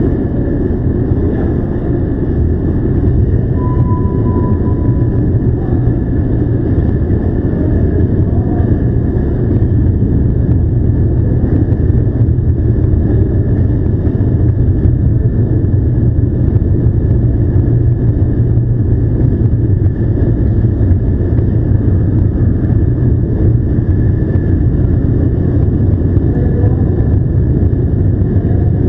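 Motorcycle engine running steadily at low speed, a loud continuous rumble. A short beep sounds about four seconds in.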